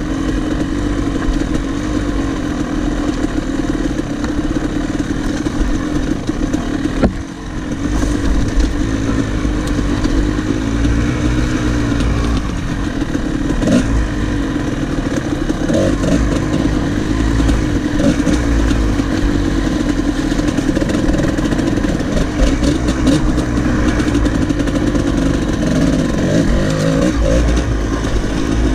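Kawasaki KDX two-stroke dirt bike engine running while riding, its pitch rising and falling with the throttle. About seven seconds in there is a brief dip in loudness.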